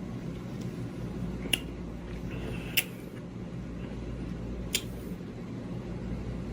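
Steady low room hum with three sharp clicks: one about a second and a half in, one near three seconds, one near five seconds.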